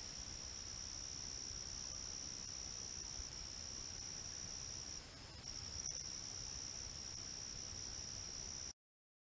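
Night insects in the woods, a steady high-pitched trill. It weakens briefly about five seconds in and cuts off abruptly near the end.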